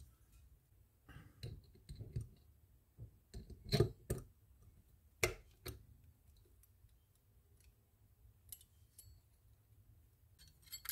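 Metal parts of a Penn 210 conventional fishing reel clicking and tapping against each other as the frame and levelwind assembly are fitted together by hand. The quiet, irregular clicks come mostly in the first half, with the two sharpest taps about four and five seconds in.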